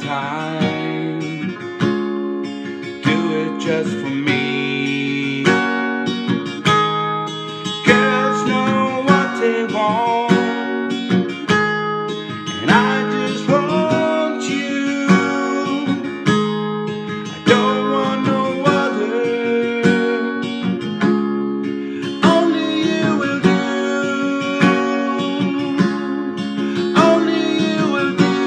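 Acoustic guitar strummed, with a man's voice singing over it in places.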